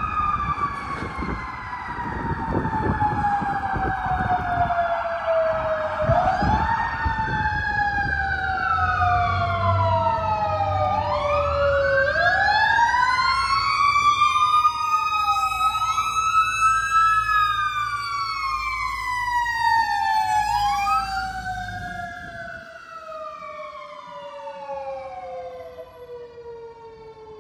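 Fire truck's mechanical siren wailing in long slow falls in pitch, each broken by a quick rise, over the low rumble of the truck's engine. The rumble stops near the end and the siren grows fainter.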